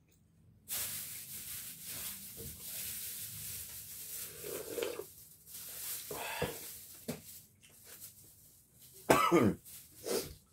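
A man coughing and clearing his throat while eating, the loudest cough about nine seconds in and a second one soon after. Before that, a steady hiss starts abruptly about a second in and lasts a few seconds.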